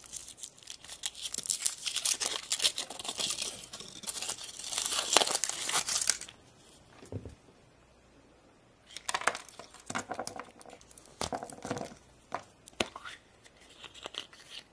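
Thin foil wrapper crinkling and tearing as it is peeled off a chocolate surprise egg, for about six seconds. After a short pause come sharp snaps and clicks as the chocolate shell is broken and the plastic toy capsule inside is pried open.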